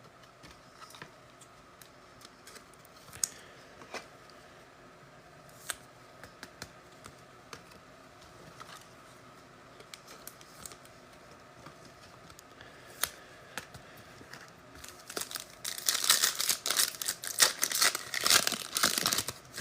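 A trading card pack's foil wrapper torn open and crinkled for about four seconds near the end, after quieter faint clicks and taps of cards being handled.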